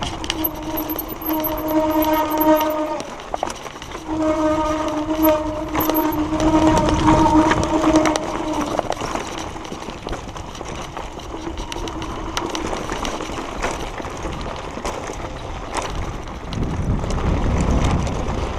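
Mountain bike's disc brakes howling with a steady, horn-like tone while braking down a stony dirt trail, twice: about half a second to three seconds in, and again from about four to nine seconds, each time cutting off as the brakes are released. The tyres and frame rattle over rocks, with wind on the microphone, and a lower rumble grows near the end.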